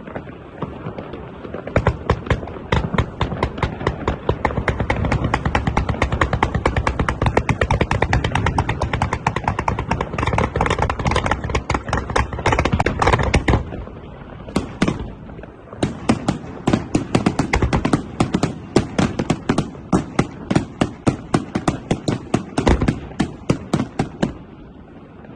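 Fireworks display: rapid volleys of sharp bangs, a dense crackling barrage for about twelve seconds, then a short lull with a couple of single reports, then another fast string of bangs for about eight seconds.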